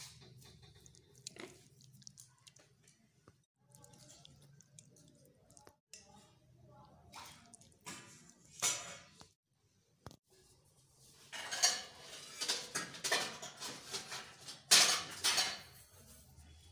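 Metal spoon scraping and clinking against a stainless steel plate while serving a moist cooked carrot dish, the scrapes coming thickest and loudest in the second half.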